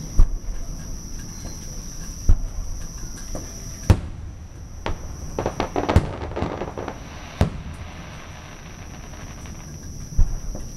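Aerial fireworks shells bursting: about six sharp bangs a second or two apart, with a spell of dense crackling about midway through.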